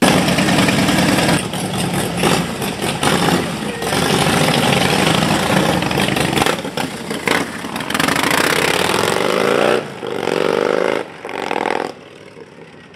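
Two Harley-Davidson V-twin motorcycles, one a CVO, running very loud as they pull away. There are uneven throttle swells, then the pitch rises as they accelerate past and away. The sound falls off sharply about a second before the end.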